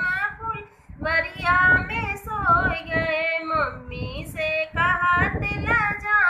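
A woman singing a north Indian folk dance song (naach geet) in a high voice, with long held, wavering notes and a short breath break about a second in.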